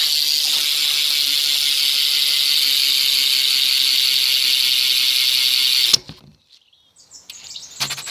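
Freewheel ratchet of a BMX's Rant female-axle rear hub buzzing steadily as the rear wheel spins freely, cutting off suddenly about six seconds in.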